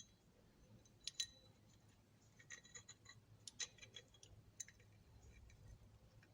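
Faint, scattered light clicks and clinks of small metal ratchet parts being handled and fitted together during reassembly of a Craftsman thumbwheel ratchet.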